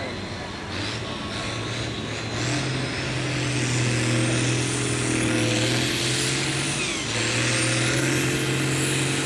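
Farm tractor's diesel engine working hard under full load as it pulls a weight-transfer sled, getting louder a couple of seconds in. A high whistle climbs above the engine note, drops briefly near the end, then climbs again.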